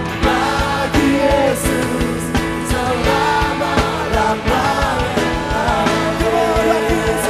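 Live band music with a steady drum beat, and a group of singers singing the melody into microphones.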